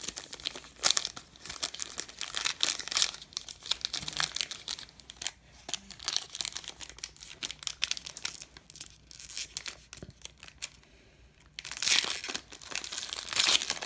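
Foil wrapper of a Panini Diamond Kings baseball card pack being torn open and crinkled by hand: a run of sharp crackles, a brief lull about ten seconds in, then louder crinkling near the end.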